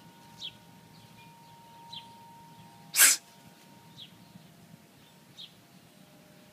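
A single short, sharp burst of breath from a person about three seconds in, hissy and much louder than anything else. Around it come a few faint, short, high chirps.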